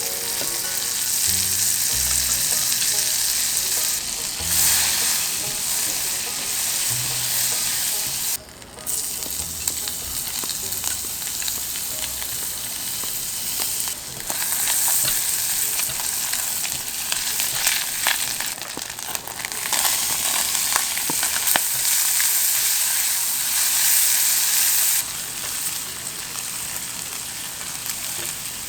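Oil sizzling and crackling in a frying pan as battered jeon are pan-fried. The sizzle cuts out briefly about a third of the way in, comes back louder around the middle, and turns quieter near the end.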